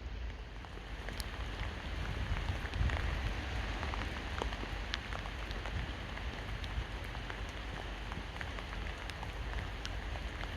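Steady rain falling, with many individual drops ticking sharply over a continuous hiss, and a low rumble underneath.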